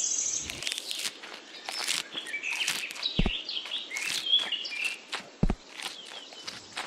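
Birds chirping and twittering in short, quick calls, mixed with brief crackling clicks and two soft low thumps.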